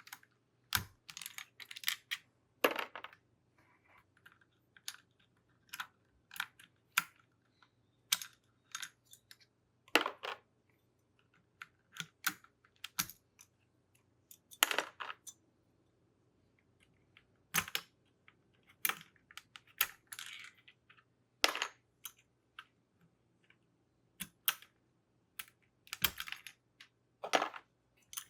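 Keycaps being pried off a keyboard one after another: irregular sharp plastic clicks and clacks, some louder snaps every couple of seconds.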